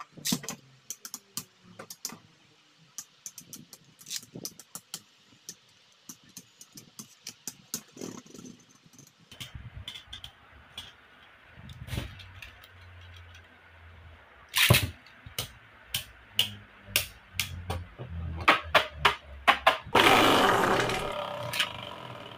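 Beyblade spinning tops clattering against each other and the plastic stadium wall: many sharp, irregular clicks and knocks. Near the end there is a louder stretch of rattling.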